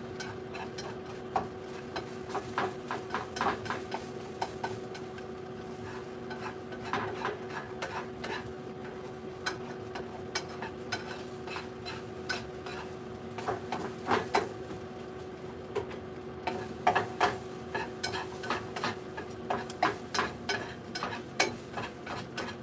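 Spatula scraping and tapping against a frying pan as eggs are stirred and scrambled, in irregular strokes.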